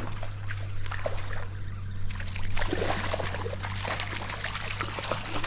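Stream water splashing and trickling, with a flurry of sharper splashes a couple of seconds in, over a steady low hum.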